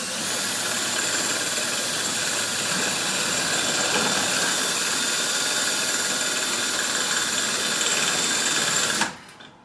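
Antique seed packing machine running on its electric motor: a steady mechanical rushing noise with a faint high whine. It cuts off suddenly about nine seconds in.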